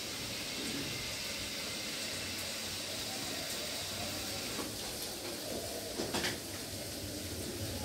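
Vegetables sizzling steadily in a kadhai on a gas stove, with a few short knocks of kitchen utensils about five to six seconds in.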